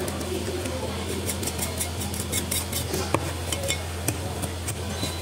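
Cleaver cutting a grass carp on a wooden chopping block: a run of sharp clicks and taps from the blade, thickest in the first half, with one louder knock about three seconds in, over a steady low hum.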